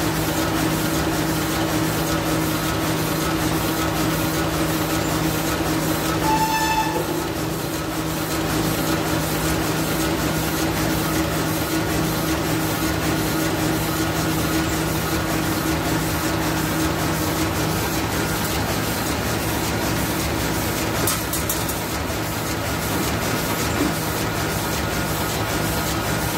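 Heidelberg GTO 52 offset printing press running with a numbering attachment, a steady, even clatter of the machine cycling over a constant hum. A short beep sounds once, about six and a half seconds in.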